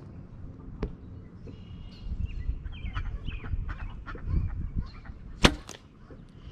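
Oneida lever bow being shot: one sharp snap of the string release about five and a half seconds in, the loudest sound. Before it, a single small click about a second in and farmyard fowl honking in short calls in the background.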